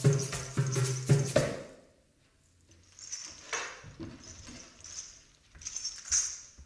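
Didgeridoo drone with percussion strokes about two a second, ending about one and a half seconds in. Then short, quieter rattling bursts from ankle rattles, shaken with each step.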